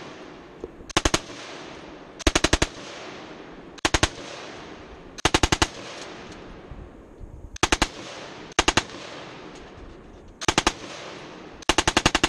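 Belt-fed machine gun fired from its bipod in short bursts of three to six rounds: about eight bursts, a second or two apart, each followed by a fading echo.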